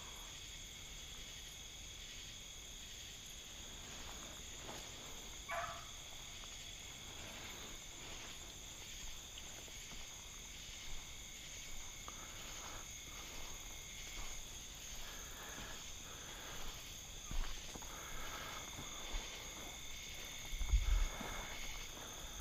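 Steady night chorus of crickets, several even high trills overlapping without a break. A few faint short cries from the beagles running the rabbit come through it, and a couple of low thumps near the end.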